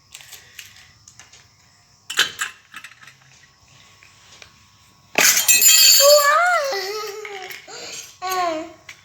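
A small knock, then a sudden loud crash and rattle of hard pieces from the unboxed chakli maker set about halfway through, followed by a child's high voice.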